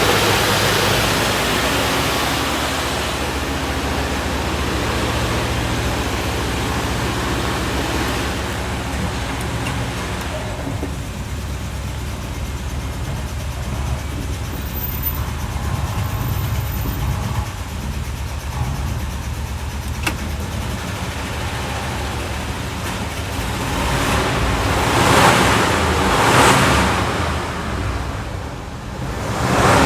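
1959 Buick's Nailhead V8 running steadily, running nice now that the car is firing after its weak-spark no-start. It swells louder twice near the end.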